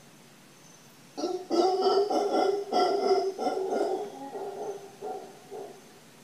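Mantled howler monkey howling: a run of low, pulsed calls that starts about a second in, is loudest over the next two seconds and tails off before the end.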